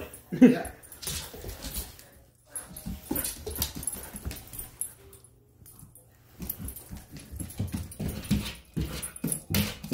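Moyen poodle scrabbling after a laser dot on a wooden floor: quick clicks and thumps of its claws and paws in several bursts, with short pauses between them.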